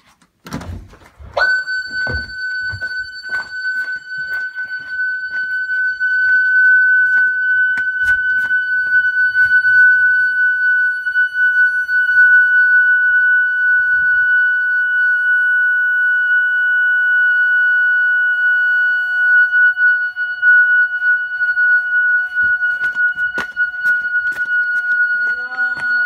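Home security alarm siren sounding a loud, steady high-pitched tone that switches on about a second and a half in and holds without wavering. A few knocks and clicks come before it.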